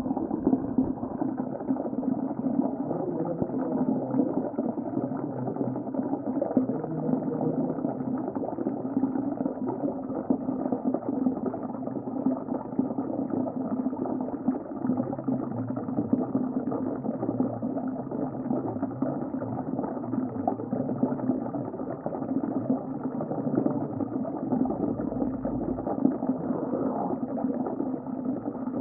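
Underwater ocean ambience: a steady, muffled rumble of moving water with no high sounds in it.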